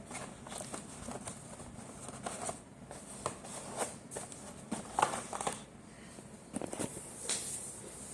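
Light clicks, taps and rustles at irregular moments as a cardboard fireworks box and its packaging are handled.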